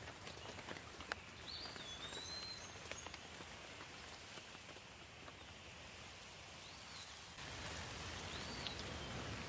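Light rain falling, a steady hiss with scattered drop taps, and a bird giving a few short whistled calls that rise and fall. About seven seconds in, the rain suddenly gets louder.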